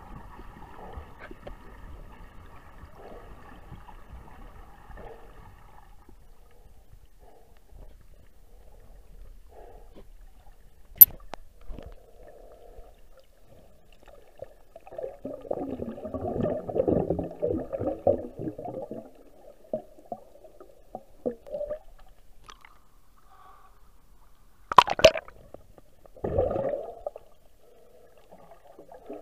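Muffled underwater water noise picked up by a submerged camera, with a sharp click about 11 seconds in, several seconds of gurgling in the middle, and two short knocks and gurgles near the end.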